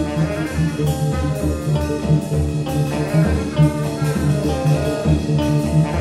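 Improvised experimental jazz played by a band, with electric guitar lines over a steady, pulsing low rhythm.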